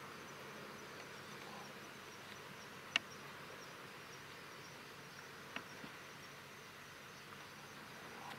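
Faint, steady outdoor background hiss with a thin high tone over it, broken by a sharp click about three seconds in and a smaller one about five and a half seconds in.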